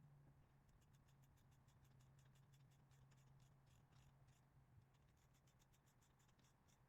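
Near silence: a faint steady low hum, with a run of faint, quick, irregular ticks through most of it.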